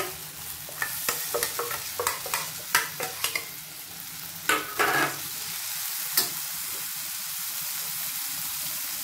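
A metal spoon scraping and knocking against steel pots as mashed toor dal is scooped into a pan, over the sizzle of onions, tomatoes and spices frying in oil. The knocks stop about five seconds in, leaving a steady sizzle.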